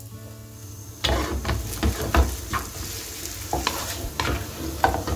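Rice vermicelli with cabbage and spring onions being stir-fried in a nonstick frying pan: a spatula scrapes and tosses the noodles in repeated strokes over a steady sizzle, starting about a second in.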